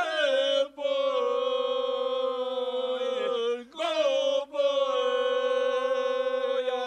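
Three men singing together unaccompanied in a traditional village style, holding long drawn-out notes: one long phrase breaks off about halfway through, and a second long held phrase follows.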